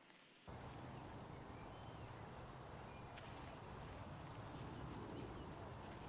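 Faint outdoor ambience: a steady low rumble that comes in abruptly about half a second in, with a few faint bird chirps and a single light click near the middle.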